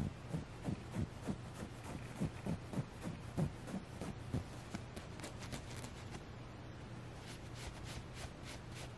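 Fingertips and nails rubbing, patting and scratching the soft plush fabric of a Squishmallow stuffed toy in quick strokes, about three a second. The strokes are dull, soft pats over the first half, then lighter, thinner scratches from about halfway on.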